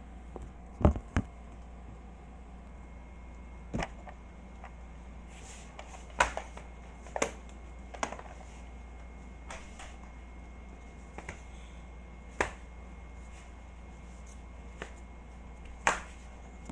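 Toy-car packaging being handled during an unboxing: about ten scattered, sharp clicks and taps at irregular intervals, over a steady low hum.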